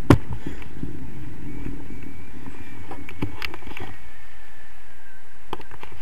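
Wind rushing over an action camera's microphone during a tandem paraglider takeoff, with a heavy low rumble that thins out about two-thirds of the way through. A few sharp knocks sound, the loudest just after the start.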